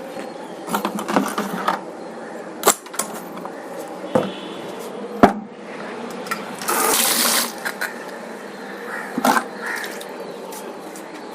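Water splashing and sloshing in a fish tank as it is cleaned out and the fish are caught, with several short sharp splashes or knocks and one longer splash about seven seconds in.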